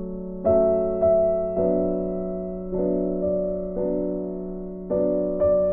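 Background music: slow, gentle piano chords, each struck and left to fade before the next.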